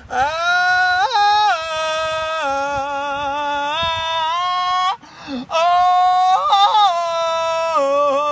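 A man's wordless singing voice: long held high notes that slide up and down between pitches, a short breath about five seconds in, then a quick wavering flutter of pitch before more held notes.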